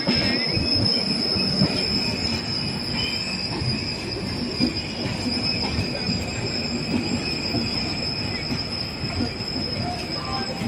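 Passenger express coaches rolling past on the rails as the train pulls out: a steady rumble of wheels and bogies with a thin, high-pitched wheel squeal held over it.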